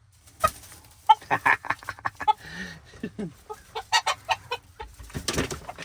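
Polish chickens clucking: a rapid, uneven series of short clucks and calls, some sliding down in pitch, with a short rustling noise near the end.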